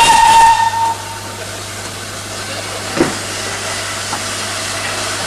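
Steam locomotive whistle sounding once for about a second, followed by a steady hiss of steam, with a single short knock about three seconds in.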